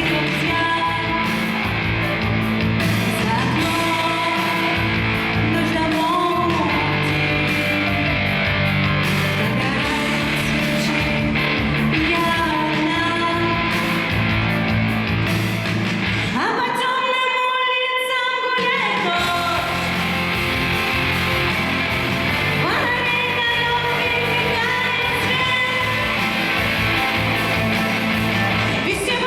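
A woman sings a Russian pop song over a full instrumental accompaniment with a steady beat. About two-thirds of the way through, the bass and low end drop out for a couple of seconds under one long held note, then the full accompaniment comes back.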